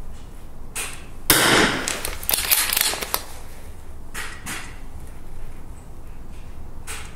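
Rifle shots at a shooting range: one loud shot about a second in that rings on for a couple of seconds, with sharp clicks inside its ringing, and a few fainter shots on either side.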